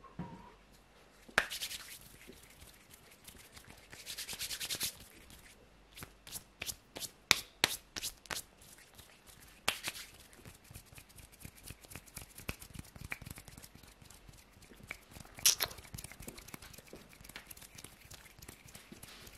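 Hands rubbing together and moving close to the microphone: brief rasping rubs, with a quick run of sharp clicks partway through.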